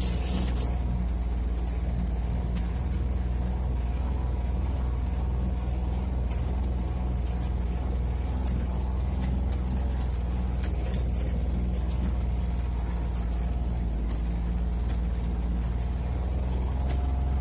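Farm utility vehicle's engine running at a steady low drone while driving, heard from the cab, with occasional light clicks and rattles and a brief hiss right at the start.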